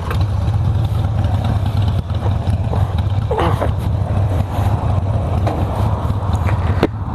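Harley-Davidson Sportster's V-twin engine running with a steady low throb, stepping up in loudness right at the start.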